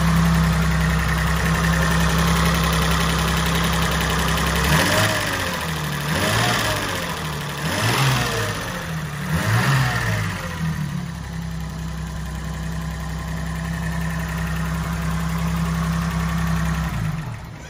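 1973 BMW 3.0CS's carburetted 3.0-litre straight-six idling steadily, blipped through four quick revs that rise and fall back to idle, then idling again until it is switched off near the end.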